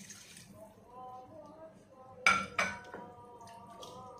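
The last of a bowl of water pouring into a cooking pot, then two sharp kitchenware clinks a little over two seconds in, close together, as she goes on to stir the pot with a wooden spoon.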